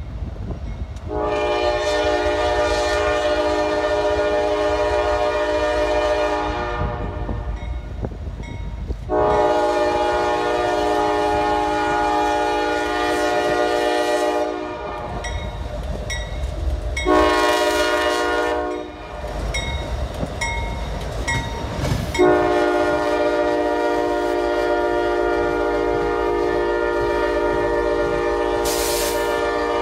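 Kansas City Southern freight locomotive horn sounding the grade-crossing signal: two long blasts, a short one, then a long one held as the locomotives pass. A low rumble of engines and wheels on rail runs underneath.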